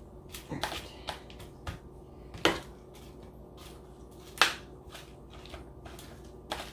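Potatoes and broccoli being spread out in a baking tray: a handful of scattered knocks and clicks, the loudest about two and a half and four and a half seconds in.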